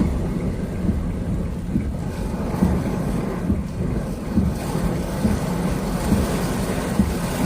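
Steady low rumble heard inside a car driving through a heavy rain and windstorm: wind buffeting the body and tyres on the wet road.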